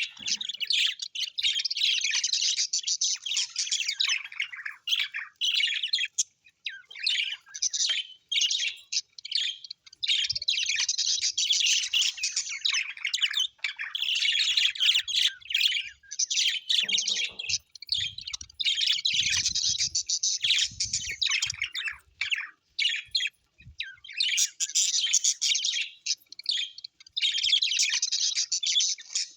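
Small birds chirping and twittering in fast, dense bursts of a few seconds each, with brief pauses between.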